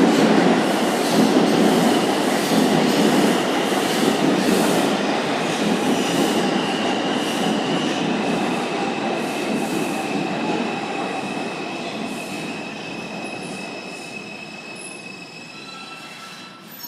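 R142 subway train rolling into the station and braking. Its wheels thump over the rail joints at a slowing rate while a high steady wheel-and-brake squeal comes in about six seconds in, and the rumble dies away as the train comes to a stop.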